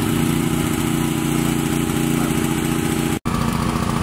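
Small petrol engine of a portable hydraulic rescue-tool power pack running steadily. It drops out for an instant about three seconds in, then carries on.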